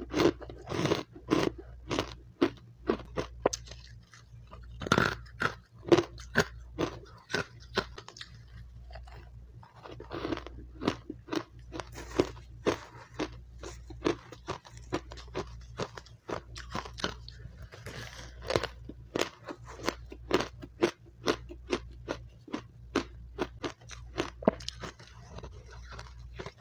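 A person biting and chewing refrozen powdery matcha ice: a fast, crisp run of crunches, with a couple of brief lulls between mouthfuls.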